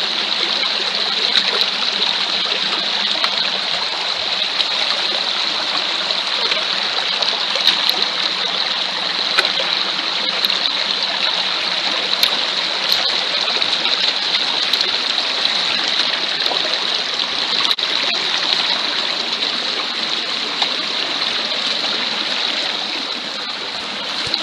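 Shallow rocky stream running over stones and small falls, a steady, fairly loud water noise heard close to the water.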